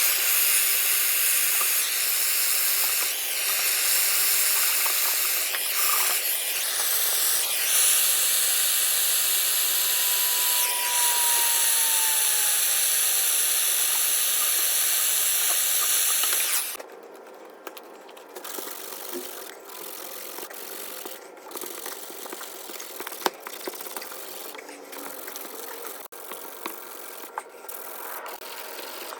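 A plumbing torch hissing steadily while a copper pipe joint is heated for soldering, then shut off suddenly. It is followed by quieter scraping and light clicks of work on the copper pipe.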